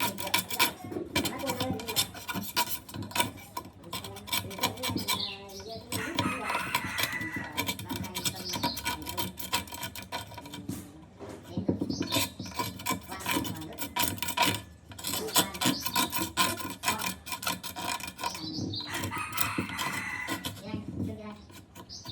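Rapid, repeated rasping strokes of hand filing. A rooster crows in the background about six seconds in and again near the end.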